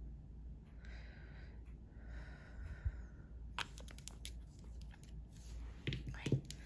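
Quiet handling of a glass gel polish bottle and its brush cap. Soft rubbing at first, then from a little past halfway a run of small clicks and taps as the cap goes back on and the bottle is moved in long nails.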